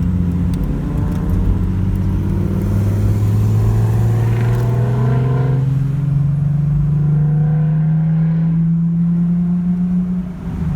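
Car engine accelerating steadily, its drone rising slowly in pitch over several seconds, then easing off near the end.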